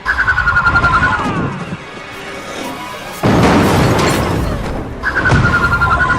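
Action-scene soundtrack: a high pulsing tone sounds twice, about five seconds apart, with a loud rushing blast between them.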